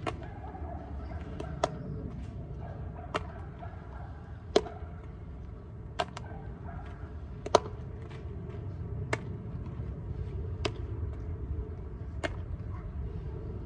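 A baseball smacking into a leather fielder's glove, a sharp pop about every one and a half seconds, nine times in a row, during a repeated catch-and-throw glove-work drill.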